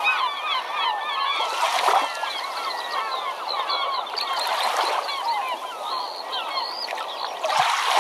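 A large flock of birds calling, many short rising and falling calls overlapping. Three whooshing swells come about two seconds in, near the middle and near the end.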